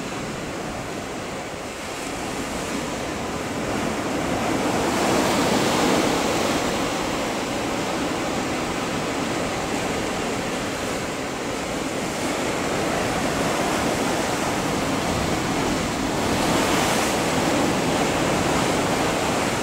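Ocean surf breaking in a rough sea: a steady rushing wash that swells louder about five seconds in and again near the end.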